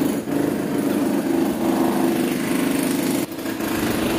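A small motor running steadily with a low, fast-fluttering hum, dipping briefly about three seconds in.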